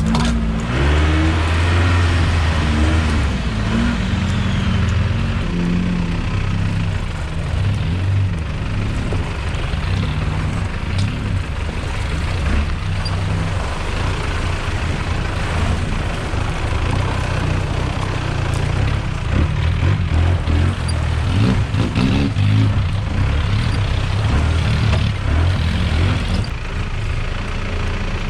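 A 4x4 off-road vehicle's engine running while driving. Its pitch rises and falls as it revs, most clearly in the first few seconds and again a little past the middle.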